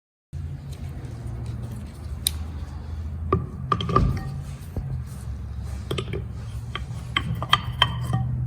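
Metal automatic-transmission parts clinking and tapping as they are handled, scattered sharp clicks over a steady low hum, growing more frequent near the end.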